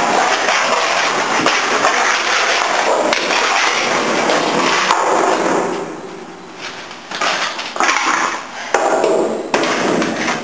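A shovel scraping sludge across the metal floor of a garbage truck's body: one continuous scrape for about six seconds, then several shorter scrapes and knocks.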